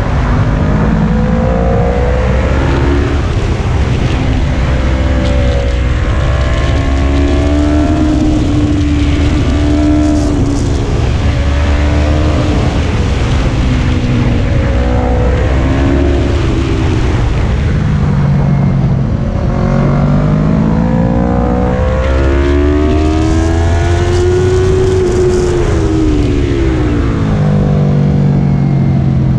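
Motorcycle engine being run hard around a tight track: its pitch climbs as it accelerates out of each corner and drops back as it slows for the next, several times over, against steady wind rush.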